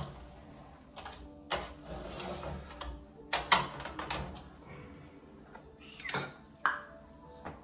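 Irregular clicks and clacks of kitchen handling as a roasted pork shoulder is shifted about on a metal wire rack, with about eight separate knocks.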